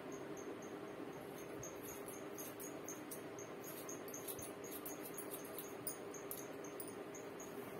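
Hair-cutting scissors snipping through long hair, short light clicks in clusters, over a steady faint hum. A faint high-pitched chirp repeats about four times a second throughout.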